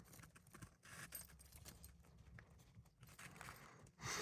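Near silence, with faint scattered ticks and rustles and a brief louder rustle at the very end.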